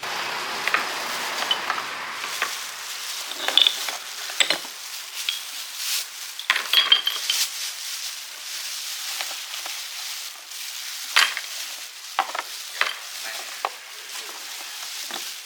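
Hand work on metal parts: irregular scraping and rustling with scattered light metallic clinks and ticks over a steady hiss.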